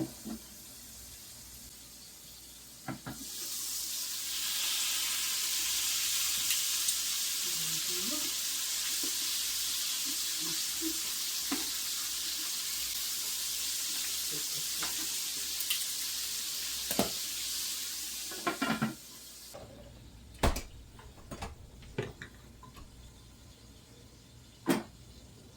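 Food sizzling as it fries in oil and butter in an electric baking pan. The sizzle swells up about three seconds in, holds steady, and cuts off suddenly after about sixteen seconds. A few sharp knocks follow.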